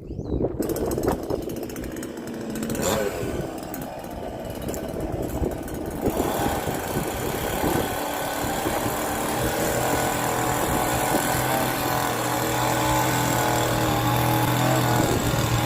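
A small engine running steadily, growing fuller and louder about six seconds in, with a strong low hum added from about nine seconds on.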